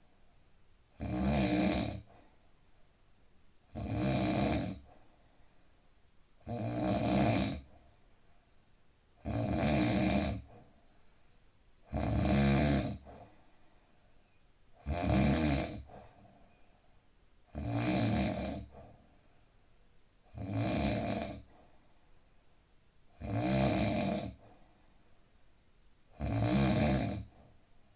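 A man snoring in a steady rhythm, one snore about every three seconds, around ten in all, with quiet gaps between them.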